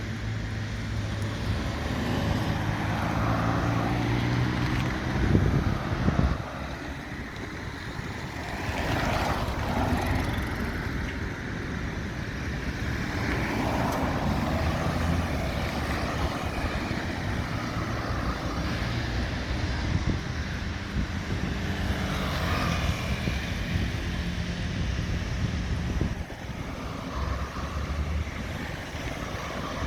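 Steady motor engine noise of passing traffic, with a louder swell about five seconds in that drops away soon after.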